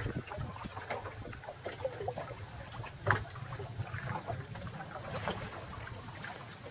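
Sailboat under sail: water splashing and lapping along the hull, with many small knocks and one sharper knock about three seconds in.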